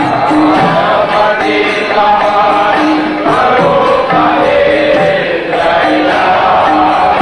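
Devotional group singing (kirtan) led into a microphone, with small hand cymbals and a drum keeping a steady beat.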